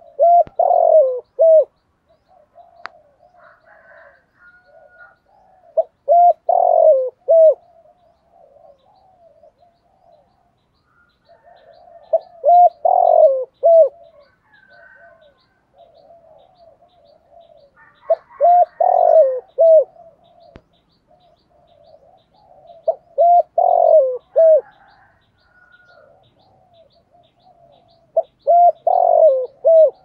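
Spotted dove cooing in the deep 'thổ' voice: six loud phrases of a few notes each, one about every five to six seconds, with softer low coos in between.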